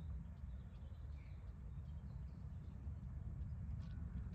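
Quiet outdoor ambience: a low steady rumble with a few faint bird calls.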